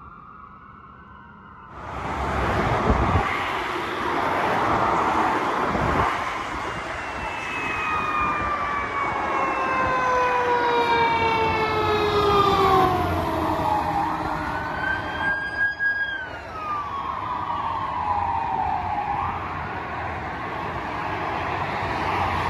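Emergency vehicle sirens wailing, faint for the first two seconds, then loud over steady freeway traffic noise: a fire engine's siren sweeps down in long falling wails and then rises and falls again, with a police car's siren behind it.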